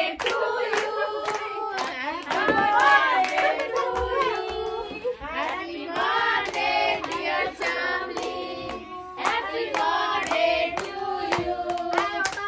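A group of people singing a birthday song together while clapping along, several voices at once with sharp handclaps through the singing.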